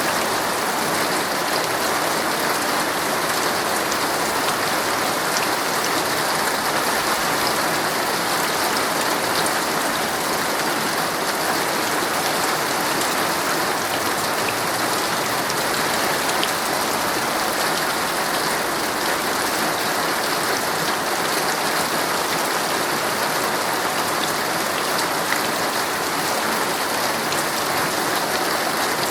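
Heavy rain drumming steadily on a tent's fabric, a dense even hiss with scattered individual drop taps.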